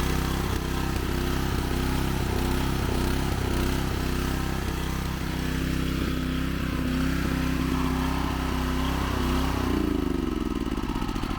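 Magnum 4000 Gold hot-water pressure washer running steadily under a leak test of a newly fitted O-ring, then shut off about ten seconds in, its pitch falling as it winds down.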